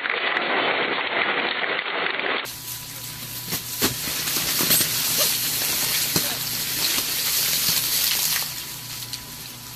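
Twin-shaft industrial shredder tearing apart a bicycle: a dense grinding rattle over a steady machine hum, with sharp cracks and snaps as the metal frame and wheels break up. Near the end it settles into a quieter churning as the shredder works through wet mixed waste.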